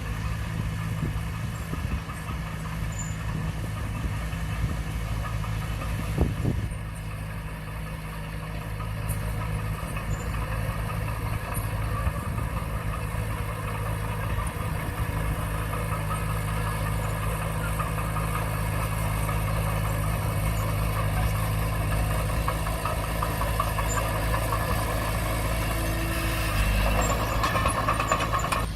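Diesel engine of a Komatsu D20P crawler bulldozer running steadily, growing louder for a moment near the end.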